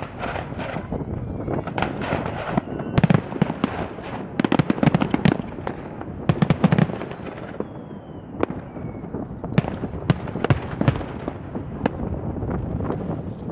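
Fireworks display: many sharp bangs and crackling from bursting fireworks, densest about three to seven seconds in, with a faint falling whistle about eight seconds in.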